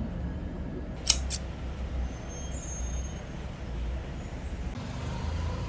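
Steady low rumble of a running vehicle, with two sharp clicks about a second in, a quarter second apart.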